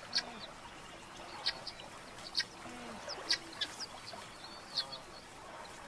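Helmeted guineafowl calling: a run of about six short, sharp calls, roughly one a second, with a few softer low notes between them.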